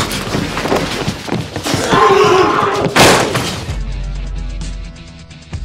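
Loud thuds and a crash, the loudest about three seconds in, with music under them. After about four seconds it gives way to quieter music with held notes.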